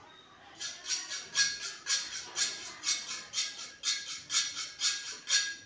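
Small knife carving a potato into a barrel (tourné) shape: a run of sharp scraping strokes, about two a second, beginning about half a second in.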